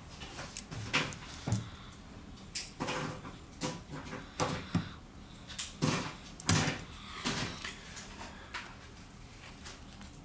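Spudger tip and gloved fingers clicking and scraping against a smartphone's circuit board and frame as the motherboard is pried up and lifted out: irregular light clicks and scrapes, a few sharper than the rest.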